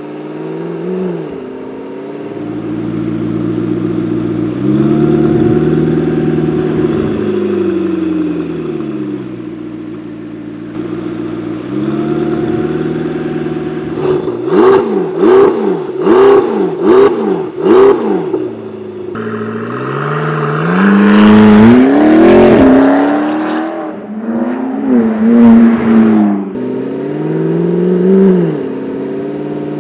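McLaren 650S twin-turbo V8 running through an aftermarket Fi valved catback exhaust with catless downpipes. For the first half, with the exhaust valves closed, the engine pitch rises and falls slowly. About halfway through the valves are open: five quick, sharp throttle blips, then longer and louder revs.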